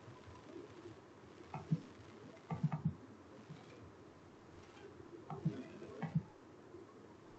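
Computer mouse clicks: a single click, then a quick cluster of three or four, then two more separate clicks, over faint room noise.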